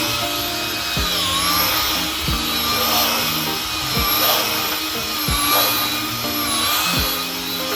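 A power tool's motor whining at a high pitch, the whine dipping and rising as the tool works the wood, under background music with a steady beat.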